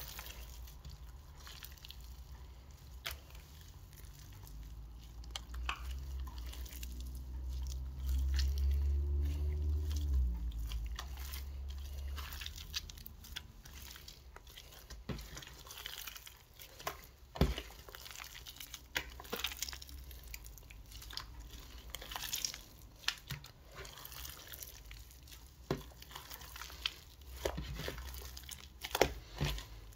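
Glossy slime mixed with small beads being squeezed, stretched and pulled apart by hand: wet sticky squelches with scattered sharp clicks and pops, more frequent in the second half. A low rumble swells about eight seconds in and fades about two seconds later.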